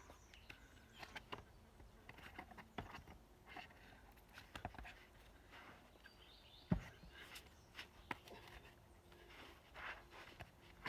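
Scattered scuffs and taps of a boulderer's shoes and hands on sandstone rock, with one dull thump about two thirds of the way through.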